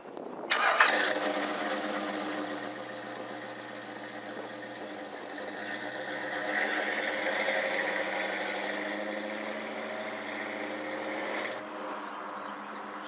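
Chevy small-block V8 engine starting: it catches suddenly about half a second in, then runs steadily, swelling slightly in the middle before dropping back near the end.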